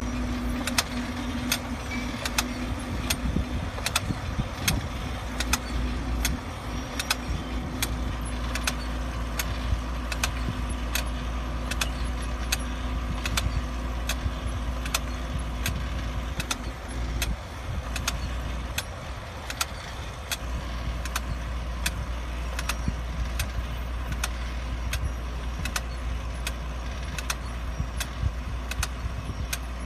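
Tractor engine running steadily as it pulls a 4-row vegetable seedling transplanter, with regular sharp clicks about three every two seconds from the transplanter's planting units working. A steady hum under the engine stops a little over halfway through.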